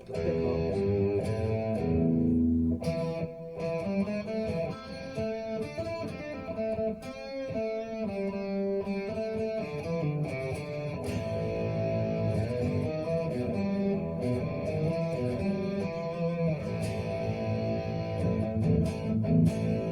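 Relic Telecaster partscaster with Bare Knuckle Nomad single-coil pickups played through an amp: simple chords and short single-note licks ringing out.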